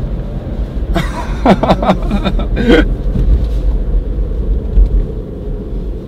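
Steady low road and tyre rumble inside the cabin of a moving MINI Cooper SE electric car, with no engine note. Brief voices come in about a second in.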